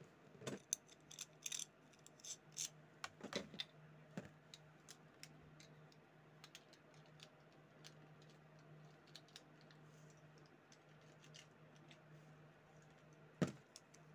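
Faint, irregular plastic clicks and taps of Beyblade tops and parts in a plastic stadium. They come thickly for the first few seconds and then thin out, with one sharper click about a second before the end, over a faint steady low hum.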